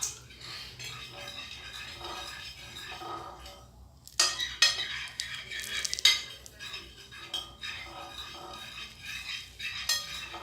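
Utensil stirring and scraping in a pot of slime mixture (glue, food colouring and boric-acid water), with irregular clinks and scrapes against the container that pause briefly near the middle and get busier just after.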